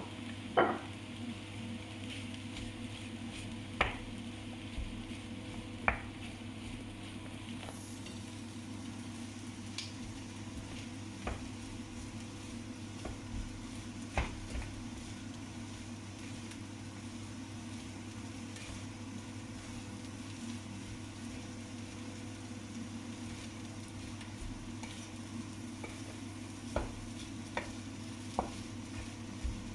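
Kottu roti frying on a flat iron griddle: a steady sizzle over a low hum, with a dozen or so isolated sharp metal clinks, the loudest near the start.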